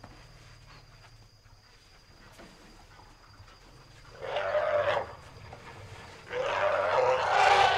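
African elephant trumpeting twice as it charges a zebra: a short blast about four seconds in, then a longer, louder one about two seconds later.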